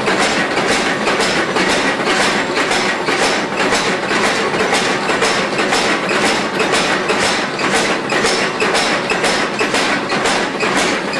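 Hand hammer striking hot steel on an anvil in an even rhythm, about three blows a second, forging the jaw of a pair of tongs, over a steady roar from the forge.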